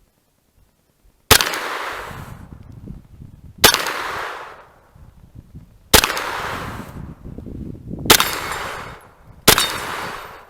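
Five shots from a 9mm Kel-Tec Sub2k carbine, fired one at a time about two seconds apart, each followed by a trailing echo of about a second.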